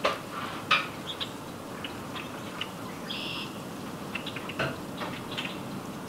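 A flock of red-winged blackbirds feeding on the ground, giving scattered sharp chip calls. The loudest chips come right at the start and just under a second in, and one longer high note sounds about three seconds in.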